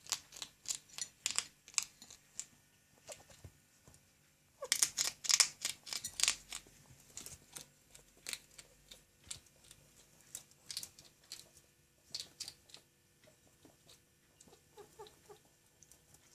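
Hedgehog eating cat food: irregular crunching, smacking chews, with a dense loud run of crunches about five seconds in. Near the end come a few short, higher-pitched snuffling sounds.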